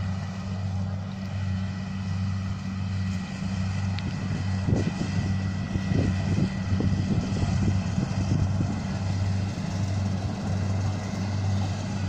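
Kubota rice combine harvester's diesel engine running at a steady low drone.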